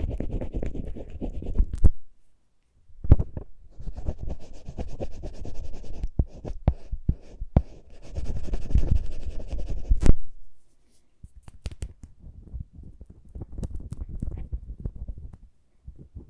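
Close-miked lip balm ASMR sounds: scratchy rubbing in several stretches of a couple of seconds each, with sharp clicks in between, and two short pauses, the first about two seconds in.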